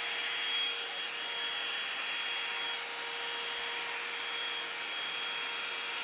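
Revlon One-Step hot air brush (hair dryer and volumizer) running steadily: a rush of blown air with a high steady whine from its motor and fan.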